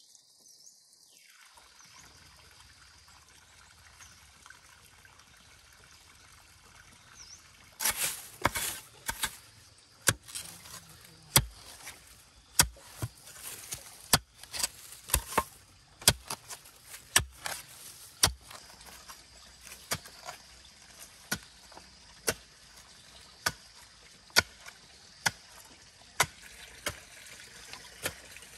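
Water trickling and splashing, with a string of sharp knocks about once a second starting about eight seconds in.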